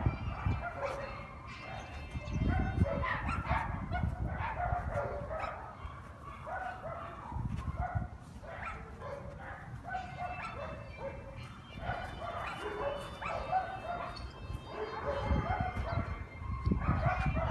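Dogs yipping, whining and barking in short calls on and off, with low rumbles on the microphone at times.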